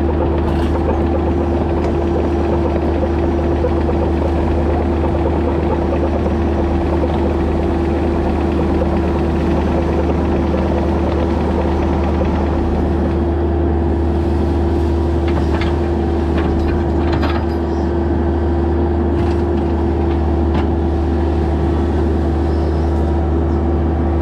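Bobcat E26 mini excavator's diesel engine running steadily under digging load, with a constant whine over its low hum, as the bucket scrapes up leaves and gravel. A few light scrapes and clicks come in the second half.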